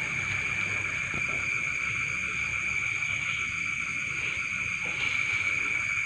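Steady chorus of crickets, trilling continuously without a break.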